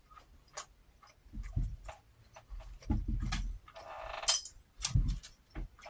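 Eating sounds at a plate: scattered clinks of cutlery and dishes, three short low throaty sounds from the eater, and a brief rustling noise about four seconds in.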